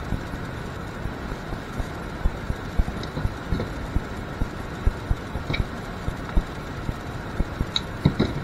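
Small metallic clicks and handling noises from a crimping tool and a bare spade terminal being fitted onto a stripped wire, scattered over a steady background hum.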